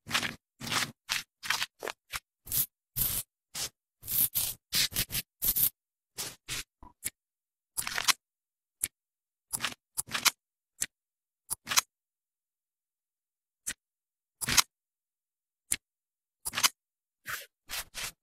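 Short scraping and clicking sound effects of animated shaving and tweezing, each stroke cut off into dead silence. They come in quick succession at first and then thin out to scattered single strokes, with a gap of about two seconds past the middle.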